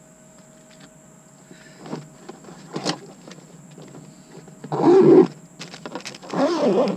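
Close handling noise as the quadcopter and its padded nylon carrying bag are grabbed and pulled: a couple of light knocks about two and three seconds in, then two loud rubbing, scraping rustles right against the microphone in the last two seconds. A faint steady high electronic whine runs underneath.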